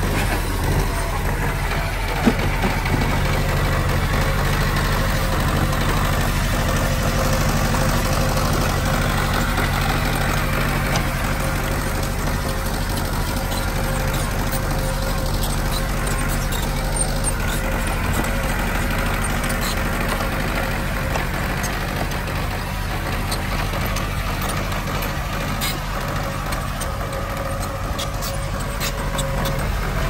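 Heavy-equipment diesel engine running steadily at an even pitch, with a few light clicks and knocks over it.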